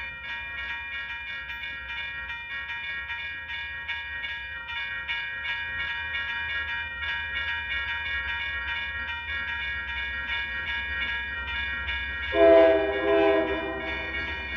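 Railroad grade-crossing bell ringing steadily at about three strokes a second over the low rumble of a passing train. About twelve seconds in, a locomotive horn gives two short blasts.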